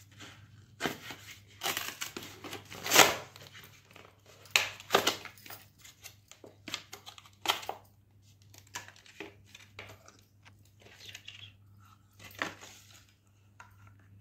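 Cardboard and plastic packaging being torn open and slid apart by hand to free a silicone garlic peeler: irregular crinkling, scraping and tearing in fits and starts, loudest about three seconds in, thinning to occasional rustles in the second half.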